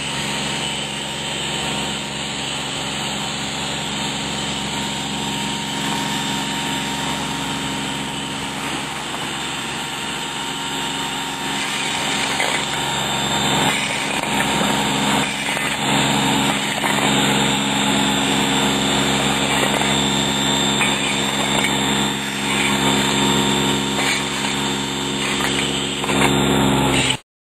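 A small engine running steadily at a constant pitch, a little louder in the second half, with a few faint scrapes or knocks.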